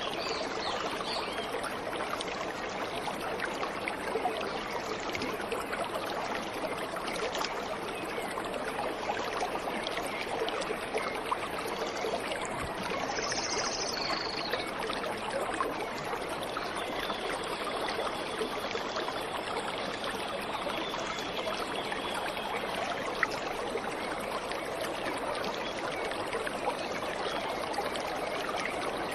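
Waterfall water running steadily, a continuous even rush. About halfway through, a brief high bird call sounds over it.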